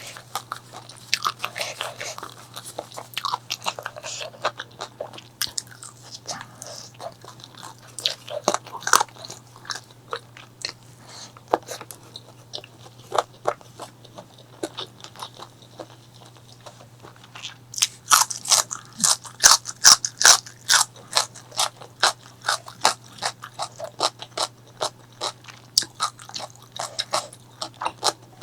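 Close-miked chewing of crunchy food: a run of sharp crunches and mouth clicks, densest and loudest about two-thirds of the way through.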